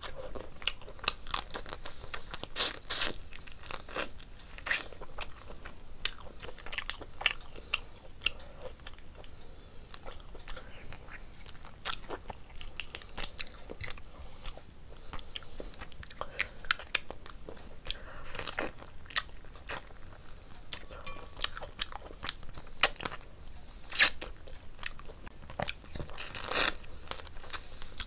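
Close-miked chewing of a mouthful of curry and rice, with a steady run of short mouth clicks and smacks.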